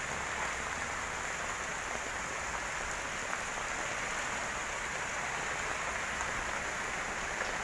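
Heavy rain falling steadily on a flooded, muddy street, an even hiss with no distinct events.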